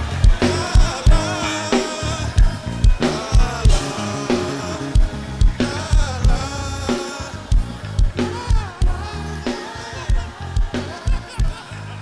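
Live gospel music: a band with drum kit and bass keeping a steady beat under a sung and played melody, gradually getting quieter.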